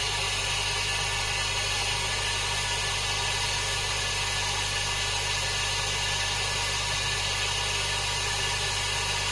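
Secoh JDK80 linear diaphragm air pump running steadily: an even low hum with a steady hiss over it.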